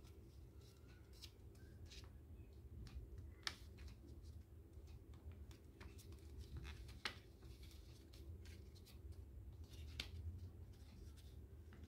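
Faint crinkling and rustling of a sheet of origami paper as it is folded and creased by hand, with a few sharper crackles about a third of the way in, past the middle and near the end. A steady low hum sits underneath.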